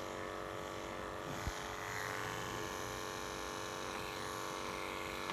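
Andis two-speed electric pet clippers with a #10 blade running with a steady hum while shaving a long-haired cat's coat.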